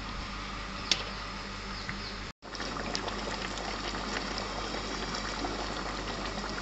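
Masala gravy bubbling at a simmer in an iron kadai around a whole chicken, with a ladle scooping and pouring the gravy. There is a sharp click about a second in, and the sound cuts out briefly a little over two seconds in.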